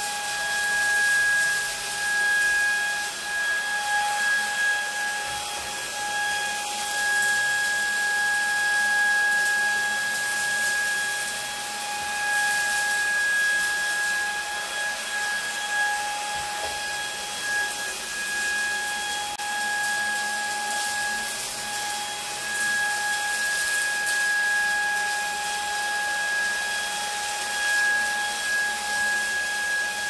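Lacidoll cordless wet-dry stick vacuum running while it vacuums and mops a hard floor at once, set to its second speed: a steady two-pitch motor whine over a hiss of rushing air.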